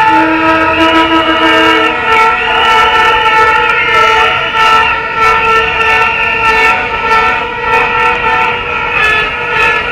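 A crowd of marchers blowing many plastic horns at once, vuvuzela style: a loud, dense chorus of overlapping held notes at several pitches, with scattered sharp clacks over it.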